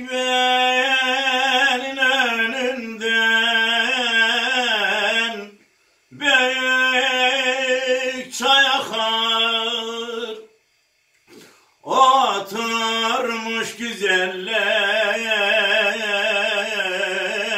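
A man singing a Turkish uzun hava, a free-rhythm folk song, solo and unaccompanied, in long held notes with wavering ornaments. He sings three long phrases, pausing twice briefly.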